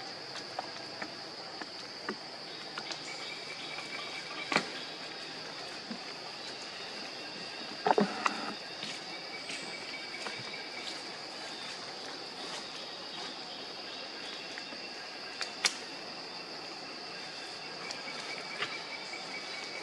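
Steady high-pitched drone of insects in the surrounding vegetation, with a few sharp clicks and knocks; the loudest is a short cluster about eight seconds in.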